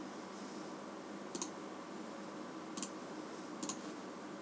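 Three separate clicks of computer keyboard keys being pressed, spread out over a faint steady hum.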